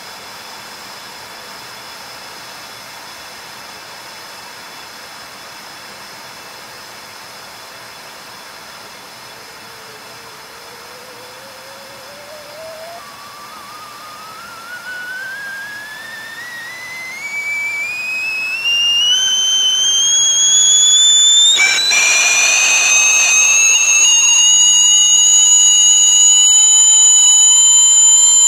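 Whistling kettle coming to the boil: a steady hiss, then from about ten seconds in a thin whistle that rises steadily in pitch and grows louder, jumping about three-quarters of the way through to a loud, high full whistle held at a steady pitch.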